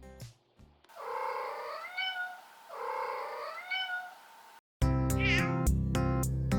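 A cat meowing twice: two drawn-out meows, each about a second and a half long, rising and then falling in pitch. Background guitar music comes back in near the end.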